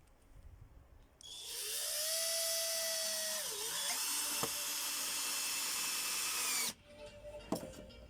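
Electric power tool running for about five seconds with a steady whine, its pitch dipping briefly partway through as it takes a load, then cutting off abruptly.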